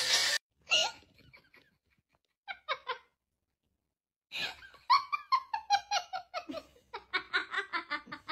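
A person laughing: a few short giggles, then from about four seconds in a rapid run of laughter that falls in pitch.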